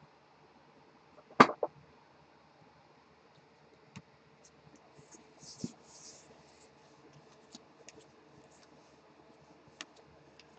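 A stack of trading cards being handled: one sharp click about a second and a half in, followed by a smaller one, then faint sliding and rustling of cards and a few small ticks as they are leafed through.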